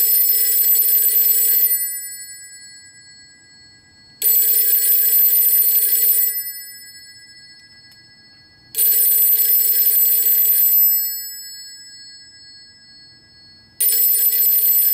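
Western Electric B1A telephone ringer, the internal ringer of 300 and 400 series phones, ringing. It gives repeated rings of about two seconds each with a few seconds' pause between them, each ring trailing off. A fourth ring starts near the end.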